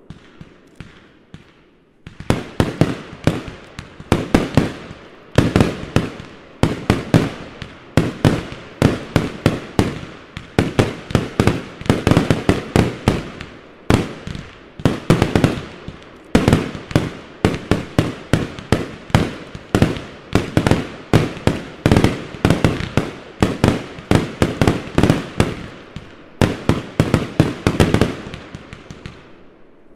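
Fireworks finale: a rapid barrage of aerial bursts, dozens of sharp bangs following one another with hardly a pause. It starts about two seconds in after a faint crackle, with a few brief lulls along the way.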